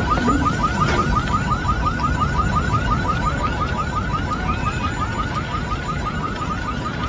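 Car alarm sounding: a fast run of rising electronic chirps, about seven a second, over a steady low rumble, slowly getting quieter.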